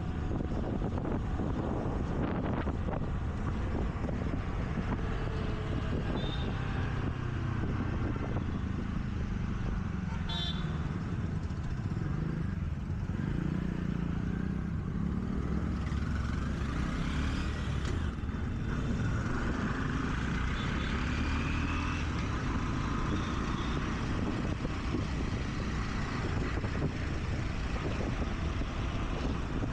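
City traffic heard from a moving scooter: a steady engine and road rumble, with other vehicles' engines rising and falling as they pass. A short horn toot sounds about ten seconds in.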